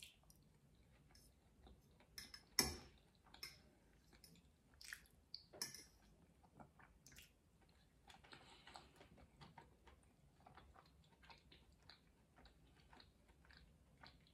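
Faint close-up chewing of soft stewed potatoes and mushrooms, with scattered small mouth clicks and one sharper click about two and a half seconds in.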